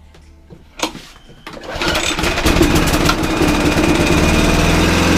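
Briggs & Stratton engine on a Mountfield SP470 rotary lawnmower starting: a sharp knock about a second in, then the engine catches and runs up to a loud, steady speed. It starts and holds its revs now that the cleaned dead-man's-handle micro switch makes proper contact.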